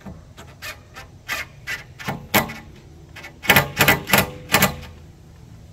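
Cordless impact driver pulsed in a dozen or so short bursts, the loudest four coming in quick succession past the middle, gently snugging the lift glass hinge fasteners home without overtightening.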